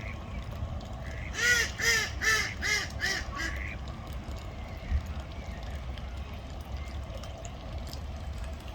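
Mallard duck quacking: a run of five quacks about a second and a half in, each a little quieter than the one before. A single sharp click follows a couple of seconds later, over a steady low background rumble.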